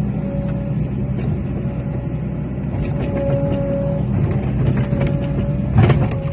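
Cat 365C excavator's diesel engine running steadily under load, with an on-and-off whine over it. Scattered clanks and knocks from about halfway, and a louder knock near the end.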